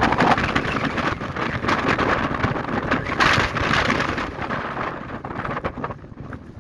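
Very strong wind on an exposed mountain summit, buffeting the microphone in heavy, rumbling gusts that ease off near the end.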